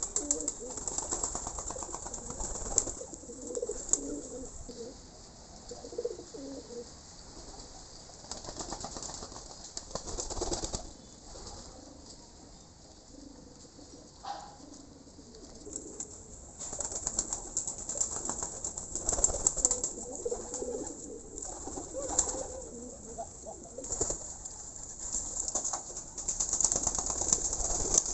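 A dove cooing in repeated low, rounded notes. A high hissing sound comes and goes with it, loudest in the second half.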